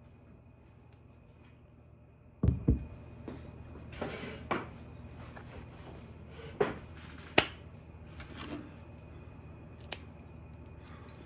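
A ceramic ramen bowl set down on a wooden table with two dull knocks about two seconds in, followed by scattered light clicks and taps. Near the end comes a sharp double crack as disposable wooden chopsticks are split apart.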